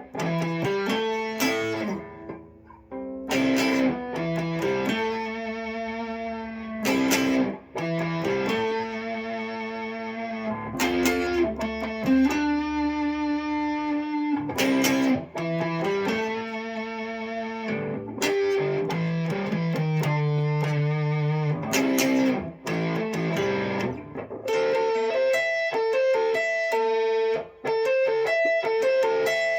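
Guitar music, likely electric guitar: plucked notes and chords, each held for about a second before the next, with a few brief breaks.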